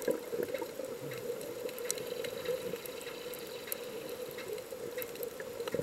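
Underwater ambience picked up by a submerged camera: a steady muffled wash of water, with scattered faint sharp clicks.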